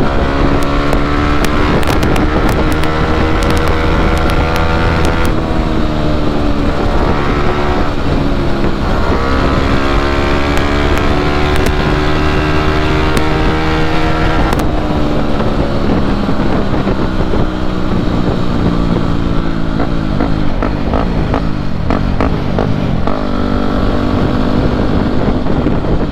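Yamaha WR250 supermoto's single-cylinder four-stroke engine pulling hard under throttle, its pitch climbing in each gear and dropping at three upshifts in the first half, then holding steady at high road speed.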